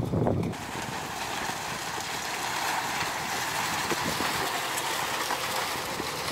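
An SUV driving across a bamboo bridge, its tyres rattling the bamboo deck slats in a steady clatter that starts about half a second in.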